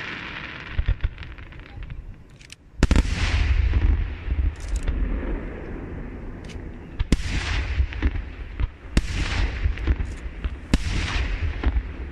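Fireworks display: a crackle of bursting stars fades out, then a loud firework shell bang about three seconds in is followed by a long low rumble. Further loud bangs and smaller cracks come every couple of seconds after it.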